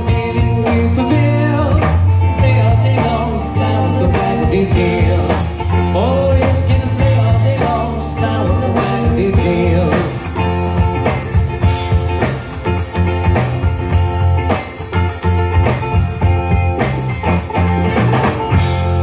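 Live trop rock band playing: steel pan, electric guitar, bass guitar and a drum kit keeping a steady beat.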